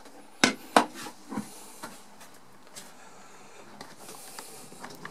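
Two sharp knocks of hard objects in quick succession, followed by a few lighter taps and then a faint steady hiss, in a small enclosed cabin.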